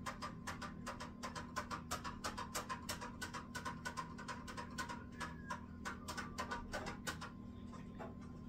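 A long spoon stirring beer-kit wort in a fermenting barrel, clacking against its sides about four times a second. The stirring stops about seven seconds in. A steady low hum sits underneath.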